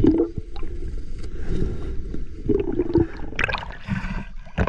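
Muffled underwater water noise with low gurgling, heard by a submerged microphone; louder splashing near the end at the water's surface.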